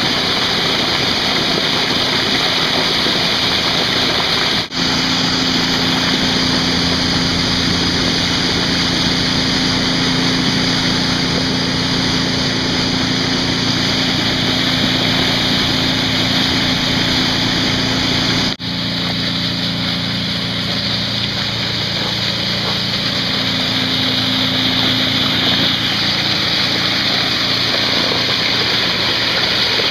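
Strong outflow of water gushing and splashing into a pond, a loud, steady rush heard close up with the microphone in the spray, with a faint low hum underneath. The sound drops out for an instant twice.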